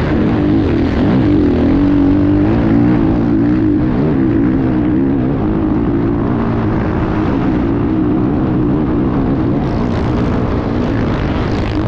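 Racing enduro motorcycle's engine running hard, heard from a camera mounted on the bike, its pitch holding fairly steady with small rises and dips.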